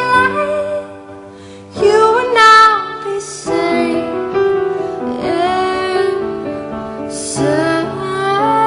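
A solo voice singing a slow melody with long held notes, over quiet accompaniment. There is a brief drop a little after the start, then the singing comes back louder.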